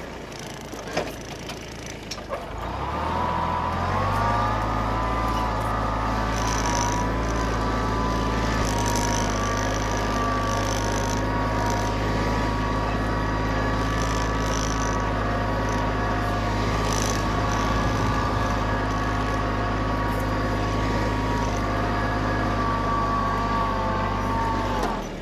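Kubota B1820 compact tractor's three-cylinder diesel engine revving up about three seconds in, then running steadily under load while pulling a plough through the soil, and dropping back in revs at the very end.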